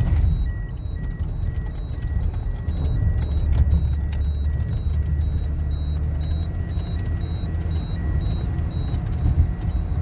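Road and engine rumble inside a moving car's cabin. Over it a faint, high electronic beep repeats a few times a second, typical of a radiation dosimeter counting.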